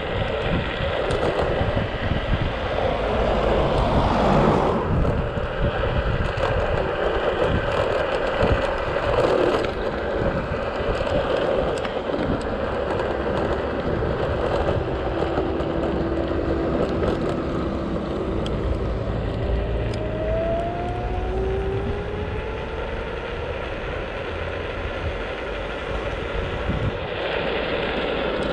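Motor scooter on the move, its small engine running under steady wind and road noise. In the second half an engine note holds and then rises in pitch.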